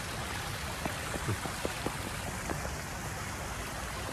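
Steady rushing noise with faint, sharp ticks scattered through it, about a dozen in all.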